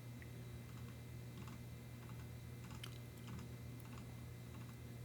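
A few faint, irregular computer keyboard clicks over a steady low hum.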